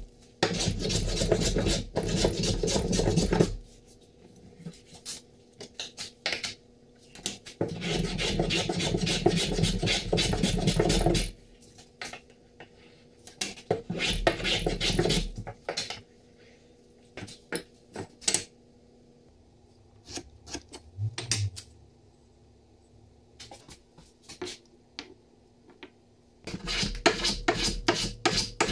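Metal hand plane cutting shavings off a beech block in runs of quick, rasping strokes, four runs in all. Between runs come light knocks and clicks as the wood and tools are handled.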